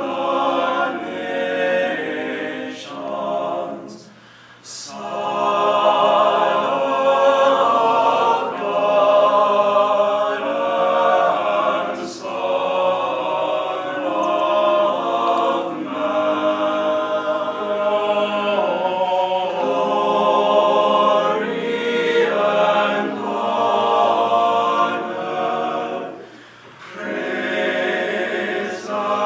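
Small male vocal ensemble singing a hymn a cappella in several parts, in long held phrases with short breaks for breath about four seconds in and again near the end.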